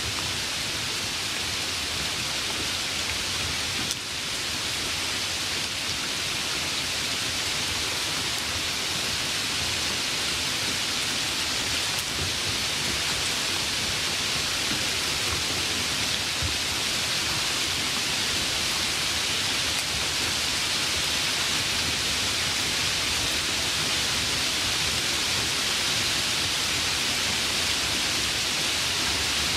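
Light rain falling steadily, an even hiss of drops pattering on surfaces.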